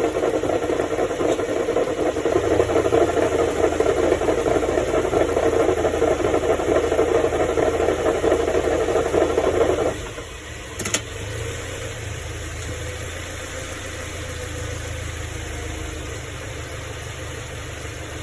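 Grinding noise from the front differential area of a 2013 Subaru Legacy 2.5 with CVT, a dense steady grind that cuts off suddenly about ten seconds in, leaving a quieter low hum with a single click just after. The wheel hubs and brakes have been checked and ruled out, at just over 200,000 miles.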